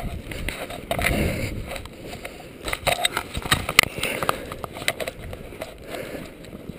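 Footsteps wading through deep snow: irregular crunching and scraping, thickest about a second in and again around the middle.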